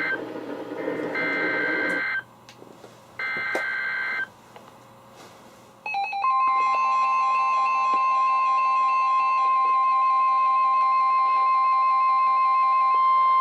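Emergency Alert System SAME header on NOAA Weather Radio: the end of one data burst, then two more raspy digital bursts about a second long with a second's gap between them. About six seconds in, the steady 1050 Hz warning alarm tone starts and holds, with a weather receiver's pulsing alert beep over it for most of its length. Together these announce an incoming warning.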